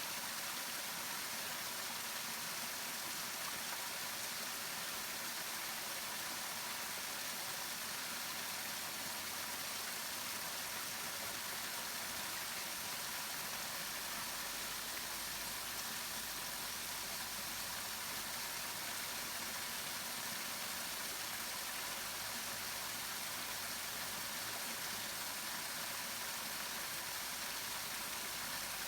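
Waterfall: the steady noise of falling water, even and unbroken.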